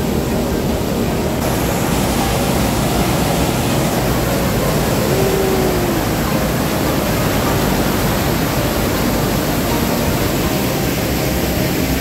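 The Rhine Falls, a large river waterfall, crashing and churning close by, heard as a loud, steady rush of water noise.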